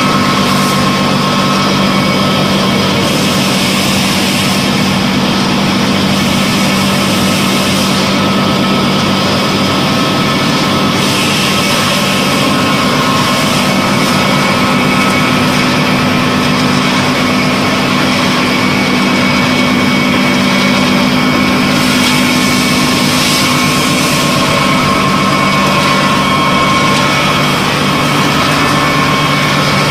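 Biomass wood sawdust pellet mill and its feed conveyors running, a loud, steady industrial drone with a constant low hum as the mill presses sawdust into pellets.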